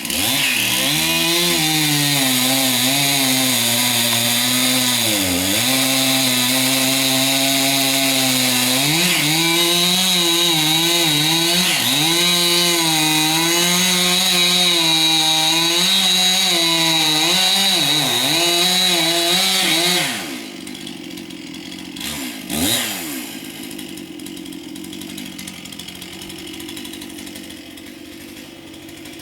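Chainsaw cutting into a large tree trunk, its engine note dipping and recovering again and again as the chain bogs under load. About twenty seconds in it drops back to idle, with one brief rev a couple of seconds later.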